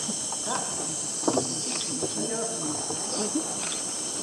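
Steady, high-pitched chorus of insects, with short faint voices or calls over it.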